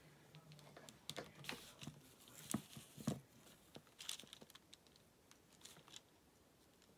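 Faint rustling and crinkling of fabric and paper scraps with scattered light clicks and taps, loudest about two to three seconds in, as collage pieces and a small craft iron are handled on the work surface.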